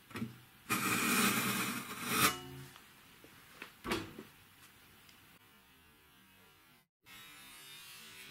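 A wide steel drywall taping knife scraped along a plaster-filled board joint for about a second and a half, followed by a single sharp knock about four seconds in.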